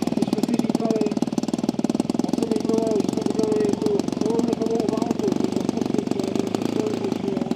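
180cc two-cylinder ZDZ gasoline engine of a giant-scale RC airplane idling after landing, with a rapid, even firing beat.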